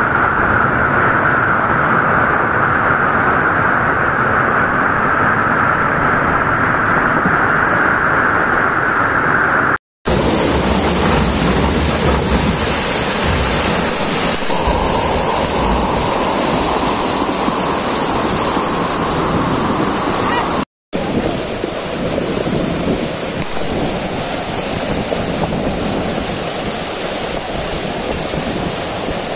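Muddy floodwater rushing in a fast torrent through the streets, a loud steady rush of water mixed with wind buffeting the microphone. The sound drops out briefly twice, about ten and about twenty-one seconds in, as one recording cuts to the next.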